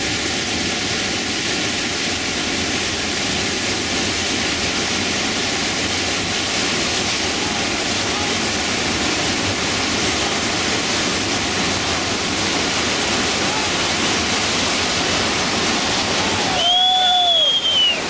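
Whitewater rapid rushing steadily, a dense constant noise of churning river water. Near the end a brief shout rises and falls in pitch over it.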